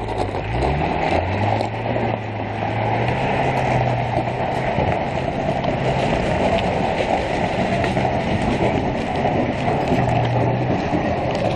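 Off-road vehicle's engine revving hard under load, its pitch rising in the first second and then held high, as it tries to climb a loose gravel slope. Spinning tyres crunch and throw gravel, with scattered stone clicks.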